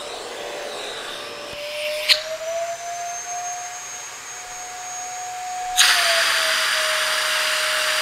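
A Zero G vacuum cleaner's motor runs with a steady whine during a sealed-suction (working vacuum) test with a gauge on the wand. About two seconds in, a click is followed by the whine rising slightly and the air noise dropping. Near six seconds a loud rush of air returns and the whine drops back.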